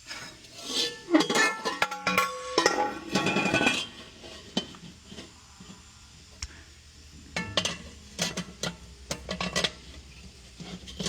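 Metal wheel parts of a three-piece racing wheel being set together by hand: a run of clanks and clinks with brief metallic ringing during the first few seconds, then scattered lighter clicks and taps.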